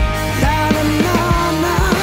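Live rock band playing: drum kit, bass and electric guitars, with a lead line that bends in pitch over a steady beat.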